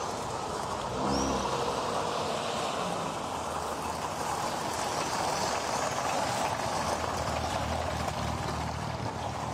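A vintage car's engine running as it rolls slowly over gravel and comes to a stop, with birds chirping now and then.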